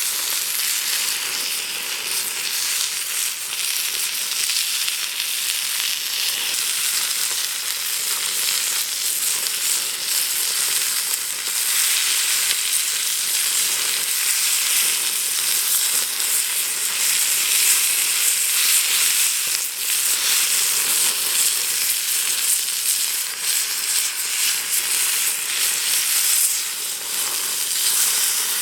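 Steak sizzling on an iron plate over a wood fire: a steady, dense hiss with small pops and crackles.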